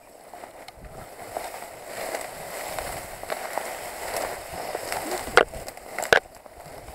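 Rustling and footsteps of someone pushing through dry reeds, with two sharp snaps about five and six seconds in.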